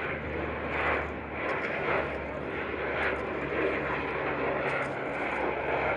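Lockheed C-130 Hercules four-engine turboprop transport passing overhead on landing approach: a steady drone of propellers and engines with a low hum underneath, swelling slightly a couple of times.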